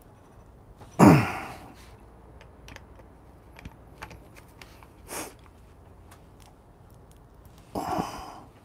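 Faint small ticks and clicks of a screwdriver tightening the burr screws in a Turin DF64P grinder's burr carrier. A man's loud breathy sigh comes about a second in, a sniff near the middle, and another sigh near the end.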